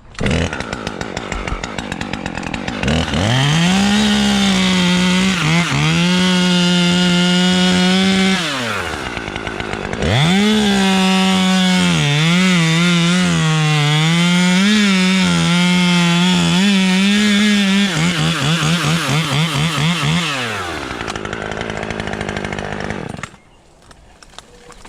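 Two-stroke chainsaw revving to full throttle and cutting pine, in two long cuts. Its pitch wavers as the chain loads in the wood. Between the cuts it eases off, and after the second cut it falls back to idle and goes quiet a couple of seconds before the end.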